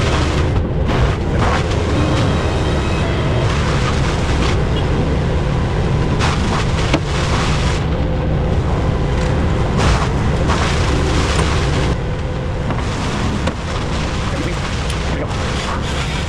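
Heavy truck engine running steadily under the knuckle-boom crane as it works, with scattered knocks and clanks. The engine sound eases slightly about twelve seconds in.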